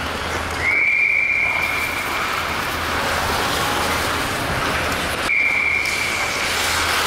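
Hockey skate blades carving a tight turn on the ice: a steady scraping hiss, with a high, steady squeal twice from the edges cutting in.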